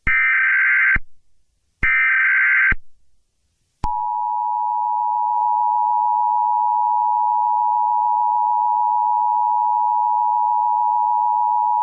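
Emergency Alert System SAME header: two roughly one-second bursts of shrill, screechy digital data tones. About four seconds in, the steady two-tone EAS attention signal (853 and 960 Hz together) starts and holds unbroken. Together they mark an emergency broadcast breaking into regular programming.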